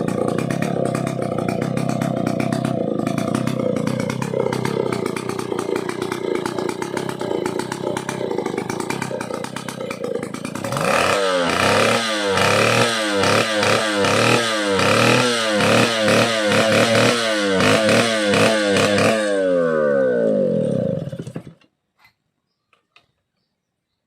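Stihl 070AV two-stroke chainsaw engine running at a fast idle, then blipped up and down rapidly and repeatedly for about eight seconds, before dropping back and shutting off a couple of seconds before the end.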